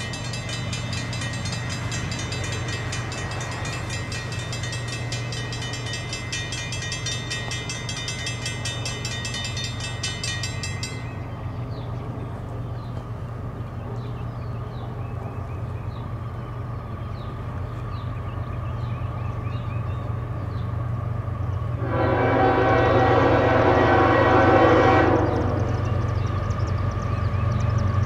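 Dual Raco mechanical crossing bells ringing rapidly, falling silent about eleven seconds in, with birds chirping faintly afterwards. About twenty-two seconds in, the approaching CSX ES44AH locomotive's Nathan K5HL five-chime horn sounds one long blast of about three seconds, and a second blast starts at the very end.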